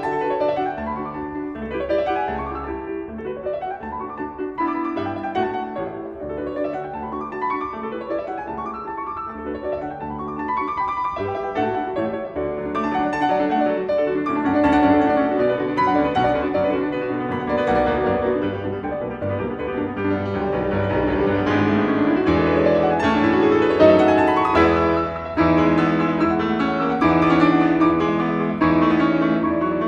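Classical piano music: fast rising runs repeated every second or so over a steady bass, growing fuller and louder in the second half.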